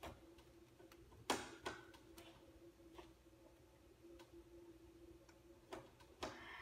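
Scattered light clicks and knocks of parts being handled during reassembly of an iMac G3's case, the sharpest about a second in, over a faint steady hum.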